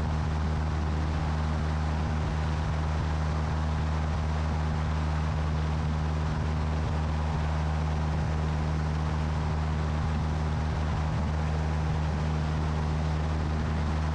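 Steady drone of a light aircraft's engine and propeller in level flight, a constant low hum over a hiss of airflow, unchanging throughout.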